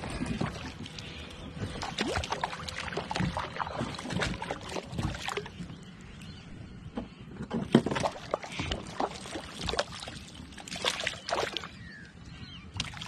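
Irregular small splashes and sloshing of water at the side of a plastic fishing kayak, mixed with light knocks and rustles of handling at the hull; the sharpest hit comes about eight seconds in.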